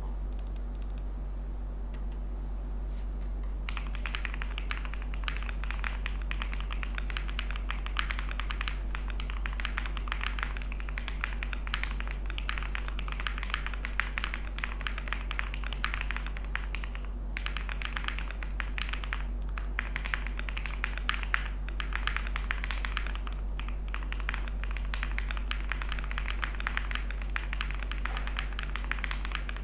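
Class65 V2 mechanical keyboard with lubed Durock POM switches, Cannoncaps keycaps and full foam, being typed on quickly in a steady stream of keystrokes that begins about four seconds in, with a couple of brief pauses. A steady low hum sits underneath.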